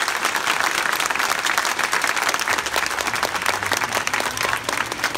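Crowd applauding steadily, a dense patter of many separate claps.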